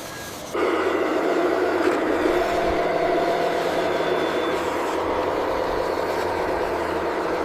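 Truck engine running steadily, cutting in abruptly about half a second in.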